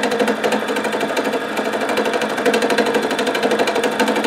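Simplicity 12-needle deluxe felting machine running, its needles punching into the felt in a rapid, even rhythm.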